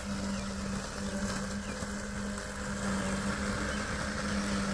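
Mammotion Luba 2 AWD battery-electric robotic lawn mower running as it mows: a super quiet, steady electric hum on one even tone.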